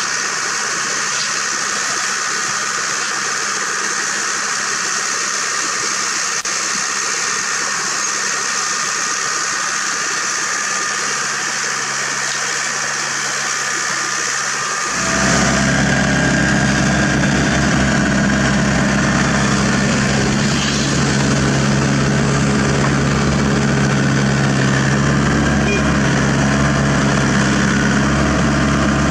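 Diesel engines of a mini excavator and a dump truck running steadily while the excavator digs and loads soil. About halfway through the sound turns suddenly louder and deeper, with a strong low engine hum.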